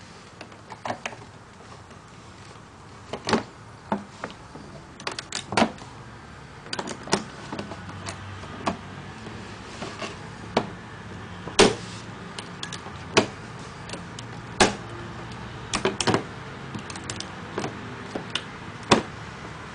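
Plastic tiles of a Rubik's Magic Master Edition puzzle clicking and tapping against each other and the tabletop as they are folded and flipped. The clicks come irregularly, some singly and some in quick clusters.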